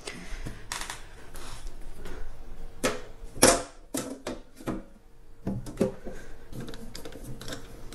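Sheet-steel lid of a battery case being set down and worked into place by hand: a series of metal knocks, clicks and scrapes, the loudest knock about three and a half seconds in.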